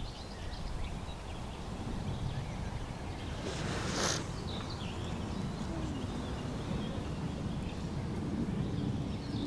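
Outdoor ambience: a steady low rumbling background with faint bird chirps, and a brief hissing swell about four seconds in.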